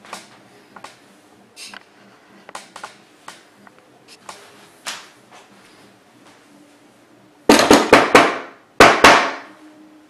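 Knocks on a wooden box fitted with a knock sensor, entering a knock code: four quick knocks, a short pause, then two more. Faint small clicks come before them.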